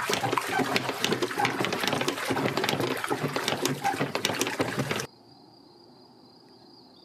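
Water with biodynamic horn-manure preparation being churned and stirred vigorously in a wooden barrel: continuous sloshing and splashing, the dynamizing of the preparation. It cuts off suddenly about five seconds in, leaving a quiet background with a faint steady high tone.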